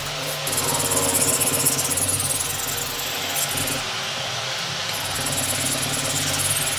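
Miyabi 5000MCD kitchen knife blade being stroked back and forth on a wet 10,000-grit waterstone, a continuous fine scraping of steel on stone. The scraping stops briefly about four seconds in while the stone is wetted, then resumes.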